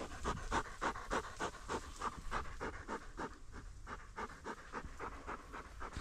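A dog panting hard close by, about three quick breaths a second, easing off about halfway through.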